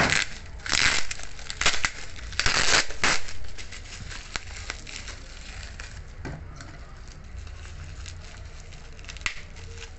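Plastic bubble wrap crinkling and rustling as it is unwrapped by hand, in several loud bursts over the first three seconds, then quieter handling with a few sharp clicks.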